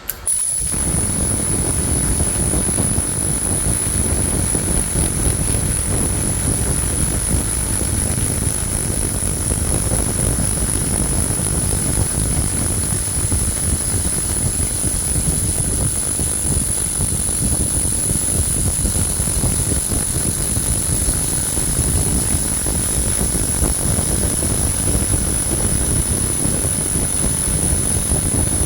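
A 300 W pulsed laser cleaner firing on a rusty bell, running an infinity swing pattern to strip the rust. It starts suddenly and runs as a steady rushing noise with a constant high-pitched whine over it.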